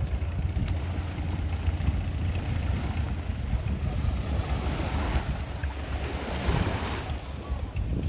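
Wind buffeting the microphone over small waves washing onto a sandy shore, the wash swelling about five and six and a half seconds in.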